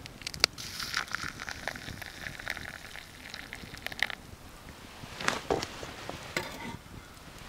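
Freshly boiled water poured from a steel canteen cup onto ground coffee in a wooden kuksa, a splashing trickle that lasts about three and a half seconds and then stops. A couple of brief handling sounds follow about a second later.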